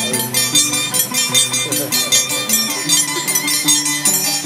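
Andean violin and harp music for the scissors dance (danza de tijeras), with a stepping harp bass and a steady beat of bright metallic clinks.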